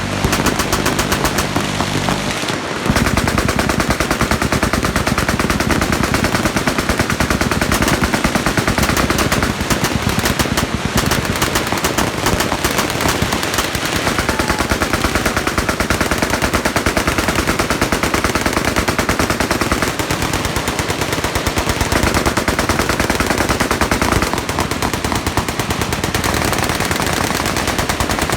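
Many machine guns firing at once along a firing line: a dense, unbroken, overlapping rattle of automatic fire.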